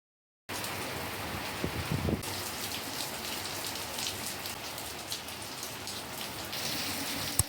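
Rain falling steadily, a continuous patter of drops. It starts abruptly about half a second in and cuts off at the end, with a few duller knocks about two seconds in.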